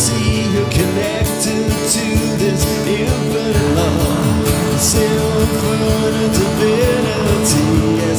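Music: a song on acoustic and electric guitar with a wavering sung melody that carries no clear words.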